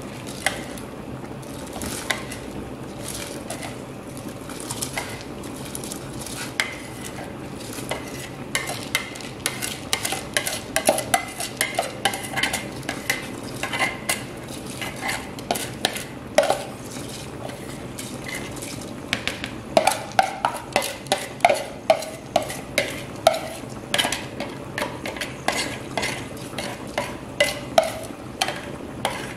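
Scraping and clattering of a white plastic bowl and its contents against a stainless steel cooking pot as rice and other food are emptied into it. Many sharp clicks a few per second, sparse at first and thick from about eight seconds in, over a steady low hiss.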